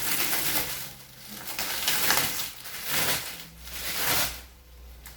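Plastic wrapping of a vacuum-packed foam mattress rustling and crinkling as it is pulled and handled, in about four short surges.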